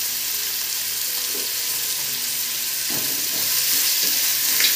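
Sliced onions frying in hot oil and ghee in a metal pot, a steady sizzle, with a metal spatula scraping and stirring through them in the second half.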